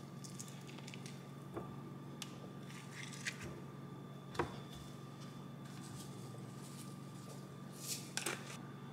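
A spoon scraping soft avocado flesh out of its skin into a ceramic bowl, in short scrapes with a sharp knock about four seconds in. Near the end a garlic salt shaker rattles briefly as it is shaken. A faint steady hum runs underneath.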